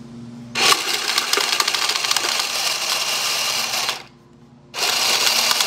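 Two-deck automatic card shuffler running: its motors whir as the feed wheels riffle cards from both sides into the centre tray, in a dense rattle that starts about half a second in. It stops for under a second, then starts again. One side is not taking its deck well, which the owner puts down to that wheel not fully engaging the cards.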